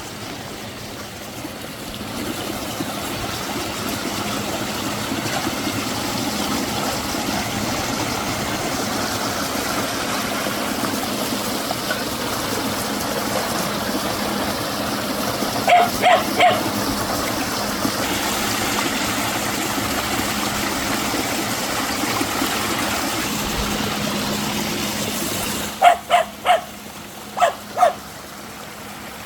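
Steady rushing of rain runoff pouring down a small waterfall from a freshly opened drainage channel. A dog barks three times in quick succession about halfway through and five more times near the end, as the water sound drops lower.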